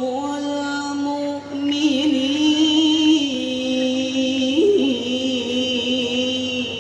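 A solo male voice chanting through a microphone and loudspeakers, in the melismatic style of Islamic vocal recitation: long held notes ornamented with wavering turns, with a brief upward leap about two-thirds of the way through.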